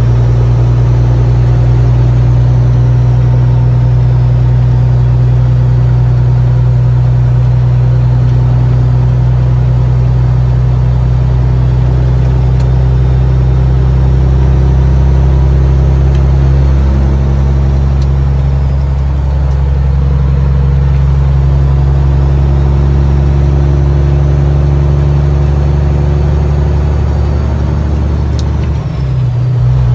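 Semi truck's diesel engine droning steadily, heard from inside the cab while driving at highway speed. Its tone shifts a little past the middle and dips briefly near the end.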